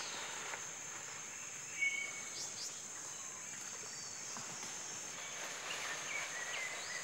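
Steady, high-pitched drone of rainforest insects, with a few short chirps over it.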